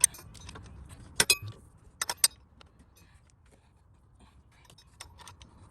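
Sharp metallic clinks and clicks of hand tools and metal parts being handled: one at the start, a quick pair about a second in, three about two seconds in, then fainter ticks.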